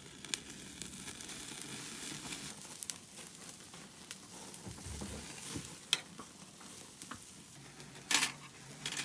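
Food sizzling and frying in a hot pan: a steady crackling hiss with scattered sharp clicks and a louder burst near the end.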